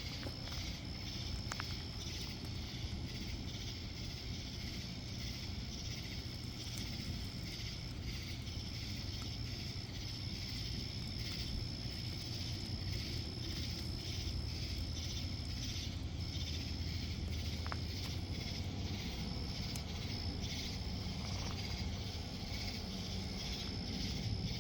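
Insects, crickets or similar, trilling in a steady high-pitched pulsing chorus, over a low steady rumble, with a couple of faint clicks.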